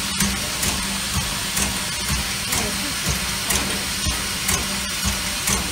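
Steam locomotive standing at rest, hissing steadily with a regular puffing beat about twice a second.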